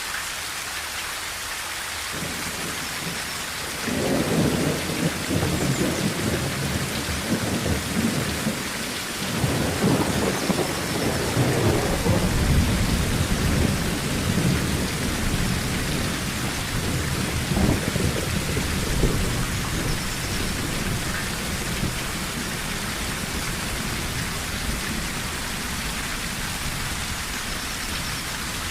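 Steady rain falling on a tin roof, with a long roll of thunder starting about two seconds in that swells twice and slowly fades over the next fifteen seconds or so.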